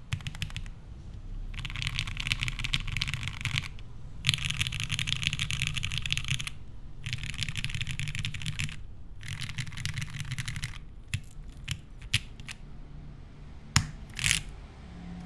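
Mechanical keyboard with lubed Gateron Minks linear switches on an aluminium plate, typed on in fast bursts of a couple of seconds with short pauses between, then a few single keystrokes. Near the end comes a sharper click and a short louder rasp.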